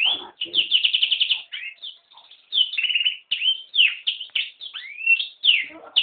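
Yellow-rumped serin × canary hybrid singing a varied, high song of rapid trills and quick whistled notes, with a short break about two seconds in and a long rising whistle near the end.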